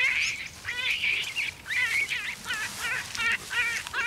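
A rapid, uneven run of high, arched animal calls, about three a second, some overlapping.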